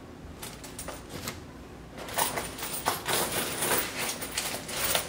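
Vending machine takings being handled: a run of clicks, clinks and rustles, sparse at first and busier from about two seconds in.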